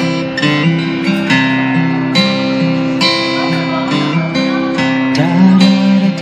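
Acoustic guitar strumming chords in an even rhythm, a new strum roughly every half second, with a few sliding notes about five seconds in.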